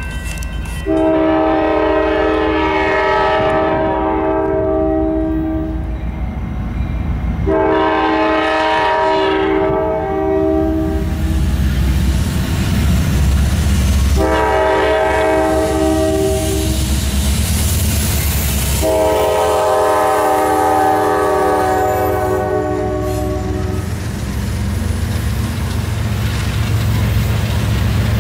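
Diesel freight locomotive's horn sounding the grade-crossing signal, long, long, short, long, over the steady rumble of the approaching engines. Near the end the tank cars are rolling past with a clickety-clack of wheels on rail joints.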